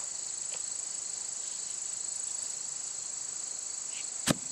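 Steady high-pitched chorus of insects, with a single thud about four seconds in as a sheet of OSB board is thrown down flat onto the grass.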